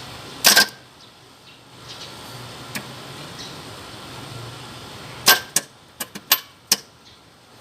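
Car starter motor jumped directly from the battery with a jumper lead, spinning in short bursts: once about half a second in, then several quick bursts in a row near the end. The starter itself works, so the no-start fault lies elsewhere.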